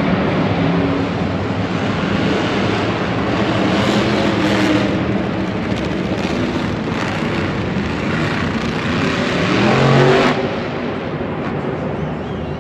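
Monster truck engines running and revving across a stadium dirt track. One rev climbs to its loudest about ten seconds in, then drops off suddenly.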